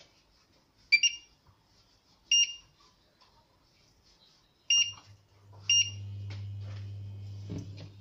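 Induction hob's touch controls beeping four times as it is switched on and set, then a steady low electrical hum from about five seconds in as the cooking zone starts heating under the empty stainless-steel pan.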